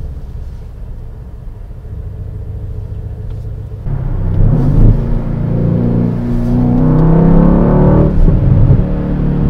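Mercedes-AMG C63S's twin-turbo V8 heard from inside the cabin: a low rumble at first, then about four seconds in it gets suddenly louder and revs up under hard acceleration, its pitch rising and stepping back at gear changes.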